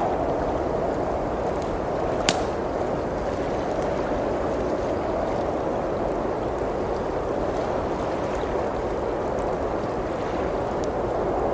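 Blizzard wind blowing steadily, with a wood fire crackling: one sharp pop about two seconds in and a few fainter crackles.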